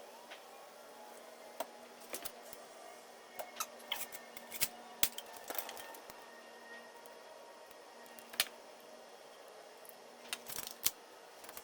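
Irregular sharp clicks and light knocks of small parts and tools being handled while fitting a van window seal, over a faint steady hum.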